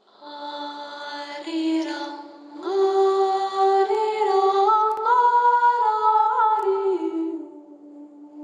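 Unaccompanied singing: a slow melody of long held notes that step up and then back down, fading toward the end.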